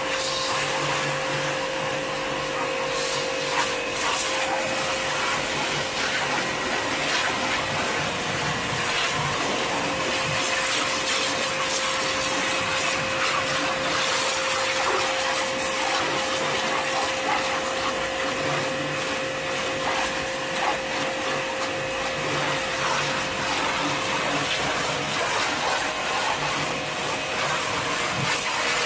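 Hiroma pressure washer running steadily, its motor and pump humming under the hiss of the high-pressure water jet spraying on a car's paintwork.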